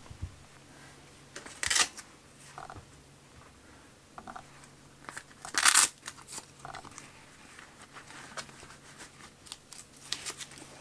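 A DSLR lens's autofocus motor whirring in several short buzzing bursts, the focus noise the uploader calls noisy. Two louder scratchy rustles come about two and six seconds in.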